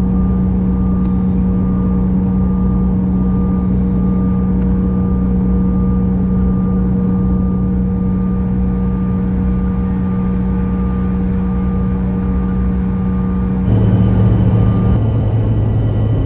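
Bombardier CRJ-1000's rear-mounted General Electric CF34 turbofans running at taxi power, heard inside the cabin as a steady hum with a few held tones. About fourteen seconds in, the sound changes to a lower hum with a higher whine and gets a little louder.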